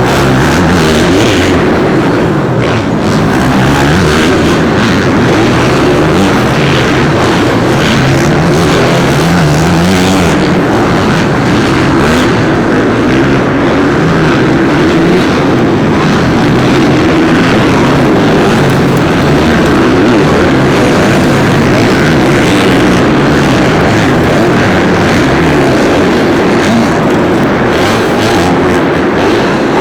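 Several dirt bike engines running and revving on a supercross track, their pitches rising and falling over one another without a break.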